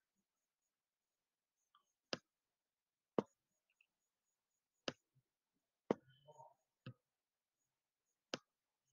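Computer mouse clicking: six sharp, separate clicks spaced about one to one and a half seconds apart.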